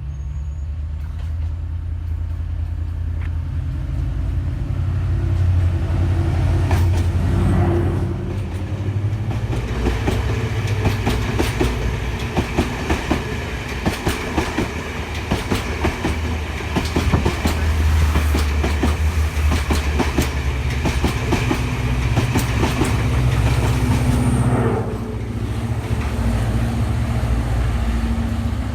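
Diesel passenger train running, with a steady low engine drone. Its wheels clatter rapidly over the rail joints through most of the middle, then the clatter drops away and the engine rumble carries on.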